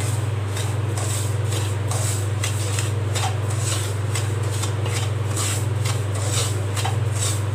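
Wooden spatula stirring and scraping fine semolina as it roasts in ghee in a nonstick kadai, with about two scraping strokes a second. A steady low hum sits under it.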